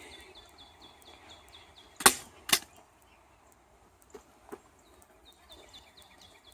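Two sharp knocks about half a second apart, against a faint, high chirping that repeats about four times a second.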